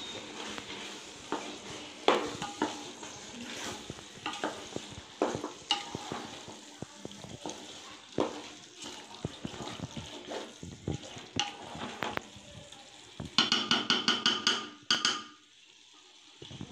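Wooden spatula stirring chicken masala in an aluminium pot, scraping and knocking against the pot's sides over a light sizzle. Near the end comes a quick run of rapid taps, then the stirring stops.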